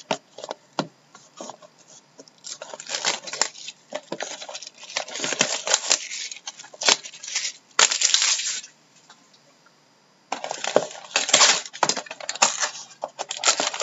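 A sealed hockey-card box being ripped open by hand, in irregular bursts of crackling plastic wrap and tearing cardboard, with a pause of over a second just past the middle.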